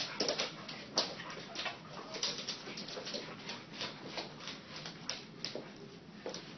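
Dog making a quick run of short, sharp noisy sounds, several a second and unevenly spaced.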